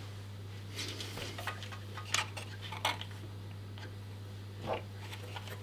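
A handful of small plastic and metal clicks and rattles as the pump block of a Corsair H150i PRO liquid CPU cooler is handled and pressed into place on the processor, over a steady low hum.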